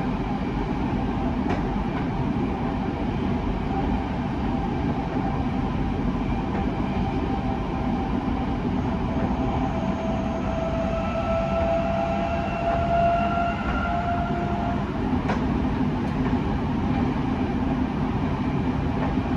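Tokyo Metro 05 series electric train running, heard from inside the passenger car: a steady rumble with a faint whine that is strongest from about ten to fifteen seconds in.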